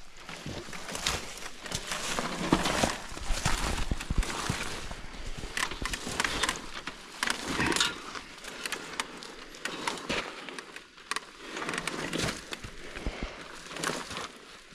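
Footsteps and the tyres of a pushed motorcycle crunching over dry leaf litter and twigs: an irregular run of crackles and rustles.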